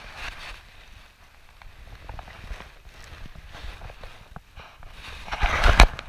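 Jacket fabric rustling and brushing against the body-worn camera's microphone, with scattered small clicks. A louder rub against the microphone comes near the end.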